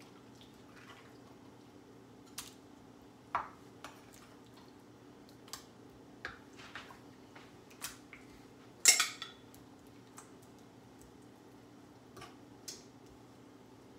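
Metal spoon clinking and tapping against a seasoning cup and salmon fillets on a wooden cutting board: scattered light clicks, with one louder clink about nine seconds in. A faint steady low hum runs underneath.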